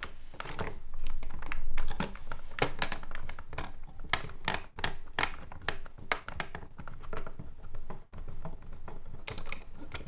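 Hands working on a plastic toy belt's casing and its small screws with a screwdriver: irregular clicks, taps and rubbing of plastic.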